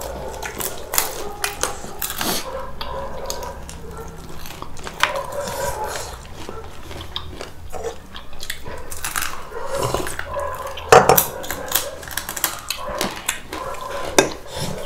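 Dishes and cutlery clinking and tapping during a meal, with scattered short clicks and knocks; the sharpest clatter comes about eleven seconds in.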